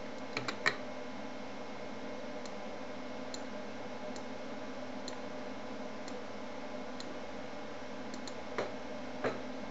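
Faint steady hiss with a few sharp computer keyboard and mouse clicks: several in the first second and two louder ones near the end, plus faint ticks about once a second.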